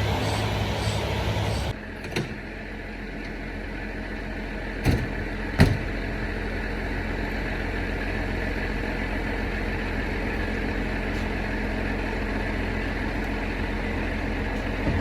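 A car running, a steady engine-and-road noise that drops in level about two seconds in, with a few sharp knocks around five seconds in.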